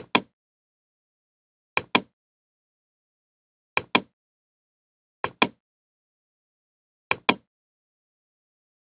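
Computer mouse clicking: five quick double clicks, one every one and a half to two seconds.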